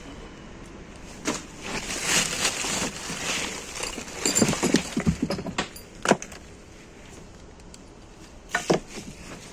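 Hand rummaging through rubbish: plastic bags and packaging rustling and crinkling, with scattered knocks and clatters of items being shifted, a burst of them about four to six seconds in and a couple more near the end.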